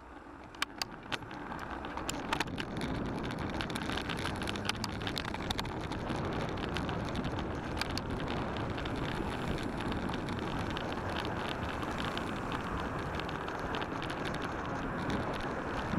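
A mountain bike sets off and rides along a wet, slushy road. Tyre hiss and wind rushing on the microphone build over the first two or three seconds, then run steadily, with scattered sharp clicks and ticks.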